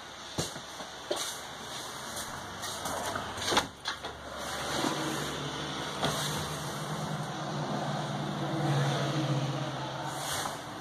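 A motor's steady low hum that sets in about four seconds in, swells to its loudest a couple of seconds before the end, then eases off. A few light knocks come earlier.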